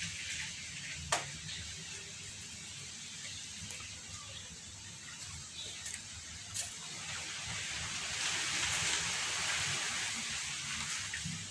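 Steady hiss with a low hum underneath and a few sharp clicks, the clearest about a second in; the hiss swells slightly after about eight seconds.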